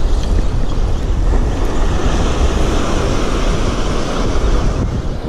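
Wind buffeting the microphone in a steady low rumble over the wash of breaking surf.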